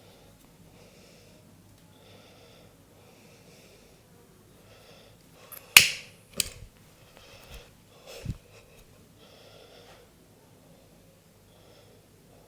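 Head and neck massage: a single sharp crack a little before halfway, a second crack about half a second later, then two softer knocks, over faint soft hissing that comes and goes about once a second.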